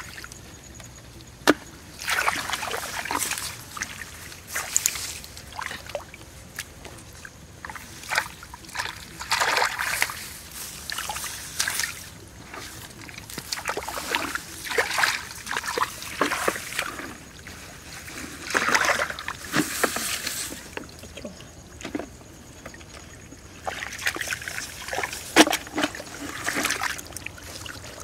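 Shallow water splashing and trickling in short, irregular bursts, with a few sharp clicks among them.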